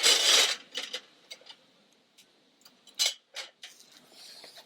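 A short rustling burst at the start, then scattered light clicks and taps of utensils against cookware, with two sharper clicks about three seconds in.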